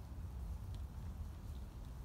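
Wind buffeting the phone's microphone: a low, uneven rumble, with a few faint ticks.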